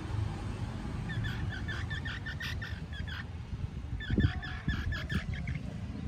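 Several quick runs of high, rapid chirping calls from a small animal, about eight chirps a second, over a low rumble. A couple of low knocks come a little after the middle and are the loudest sound.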